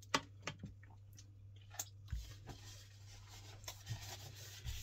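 Faint scattered small clicks and light rustling as hands are wiped on a paper napkin, over a low steady hum.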